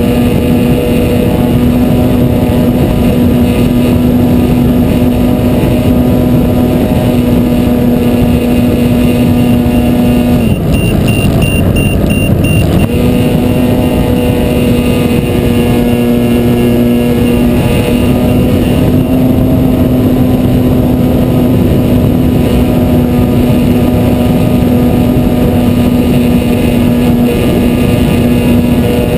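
Parkzone T-28 Trojan RC plane's electric motor and propeller running with a steady whine, heard from an onboard camera with heavy wind noise on the microphone. A little over a third of the way in the whine drops away for about two seconds as the throttle eases, then slides back up.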